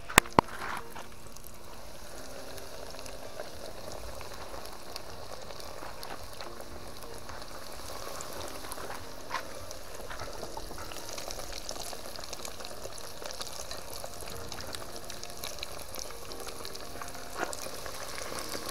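Breaded barracuda pieces deep-frying in hot oil in a pot: a steady sizzle and bubbling. Two sharp knocks right at the start, and a few faint clicks later on.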